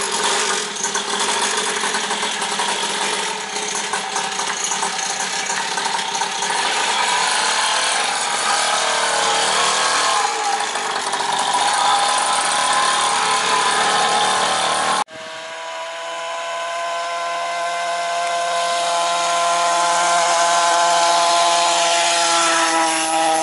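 Small 49cc two-stroke engine of a child's mini dirt bike running with a buzzing drone. After a cut about two-thirds through, it turns to a cleaner, steadier drone whose pitch rises a little near the end.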